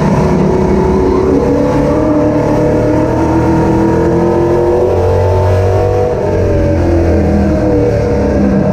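Car engine running loud and steady, its pitch climbing over the first few seconds and easing back down in the second half.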